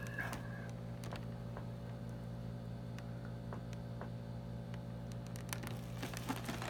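Steady low hum with a few faint clicks, which cluster near the end.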